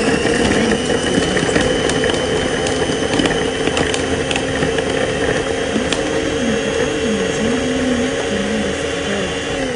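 Small electric food processor running steadily while its blade minces garlic cloves and rosemary, a constant motor whine with a few light ticks.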